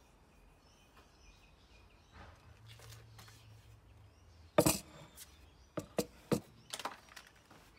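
Axe laid down on a wooden workbench: one loud knock about halfway through, then a few lighter knocks and clicks as the axe and handle are shifted on the boards.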